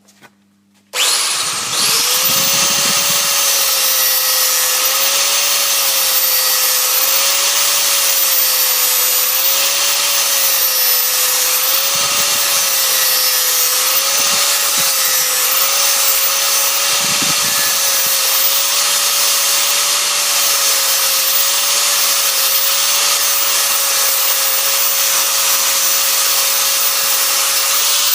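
Flap wheel on a power tool spinning up about a second in and running steadily, with a whine that wavers slightly in pitch. It is grinding relief behind the cutting end of a small internal ACME threading tool.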